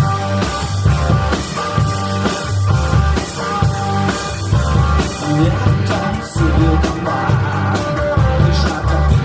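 Rock band playing an instrumental passage: drum kit, bass and guitar in a steady beat, with cymbal hits growing busier about halfway through.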